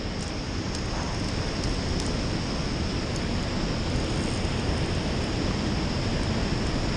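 Steady rush of river water pouring over a low dam and through the whitewater below it, with wind rumbling on the microphone.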